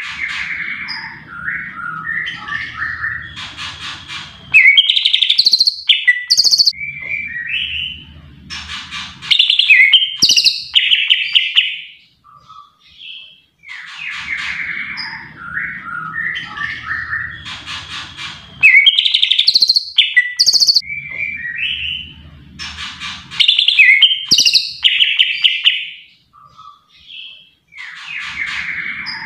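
Green leafbird (cucak ijo) singing a fast, varied song of chattering chirps and whistled notes, with several loud bursts. The same run of phrases comes round again about every fourteen seconds, with short pauses between runs.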